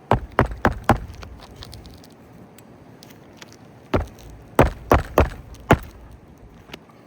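Hammer driving roofing nails into an asphalt shingle: four quick blows, a pause of about three seconds, then five more sharp blows.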